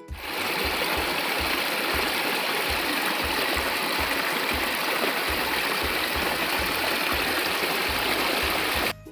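Steady rush of water from a stream or small waterfall, cut in suddenly and cut off suddenly near the end.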